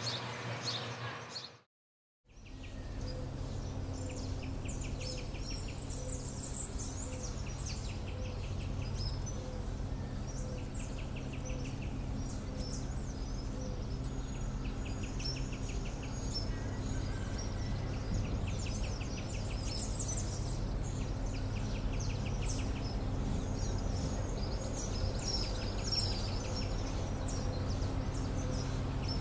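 Birds calling and chirping with repeated short insect buzzes over a steady low rumble, starting about two seconds in after a brief gap.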